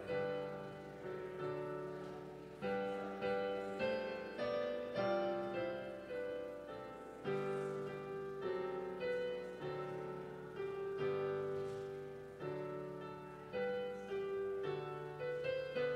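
Piano playing a slow, chordal piece, each note or chord struck and left to fade before the next.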